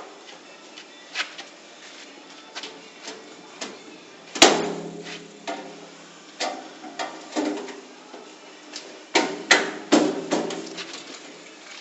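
Pry bar forced and levered at the door edge of a metal safety locker in an attempt to break it open: irregular metallic knocks and clanks. The loudest is a sharp clang about four and a half seconds in that rings briefly, and a quick run of blows comes near the end.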